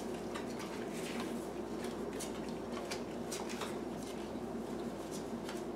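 Faint taps and rustles of cardboard trading cards being handled and stacked, a soft click every so often, over a low steady room hum.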